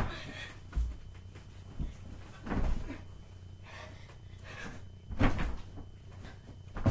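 A child's body landing on a bed mattress during front flips: a series of dull thuds and bumps, the loudest about two and a half and five seconds in.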